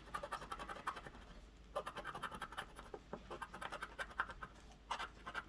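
Scratch-off lottery ticket being scratched off: quick, light scratching strokes in runs, with a couple of brief pauses.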